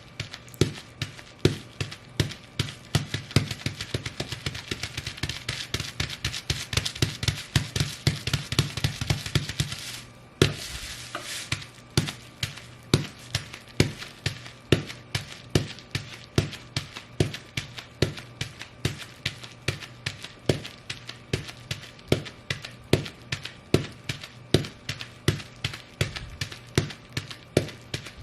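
Bubble wrap crackling and popping under fur-covered Ugg boots, in a dense quick run of pops for about ten seconds. After a brief pause it turns into an even beat of single stomps, about two a second.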